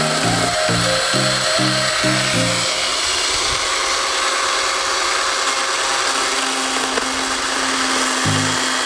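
Chainsaw running steadily, heard together with background music whose pulsing bass line stops about two and a half seconds in and comes back near the end.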